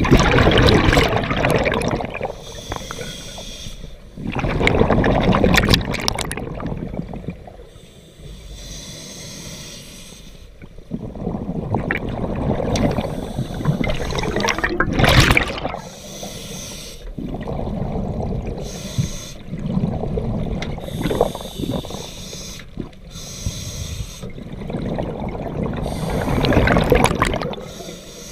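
Scuba diver breathing underwater through a regulator: loud gurgling rushes of exhaled bubbles every five to seven seconds, with quieter hissing and bubbling between.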